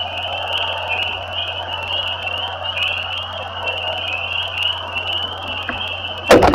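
A dense chorus of many frogs calling together, a continuous high-pitched pulsing din over a steady low hum. A sharp knock about six seconds in is the loudest sound.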